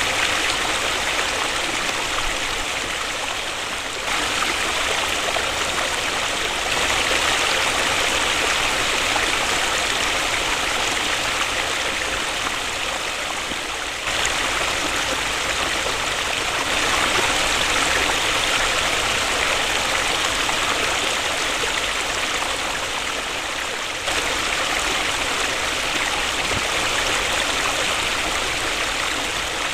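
Waterfall: a steady, dense rush of falling water, with small sudden jumps in level every ten seconds or so.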